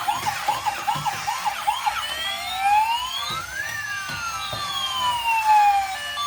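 Electronic emergency-vehicle siren. It sounds a fast yelp of about four quick sweeps a second, then switches about two seconds in to one slow wail that rises and then falls away.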